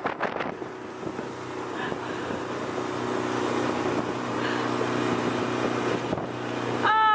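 Motorboat engine running steadily under way, with wind and rushing water, growing gradually louder. A voice cuts in near the end.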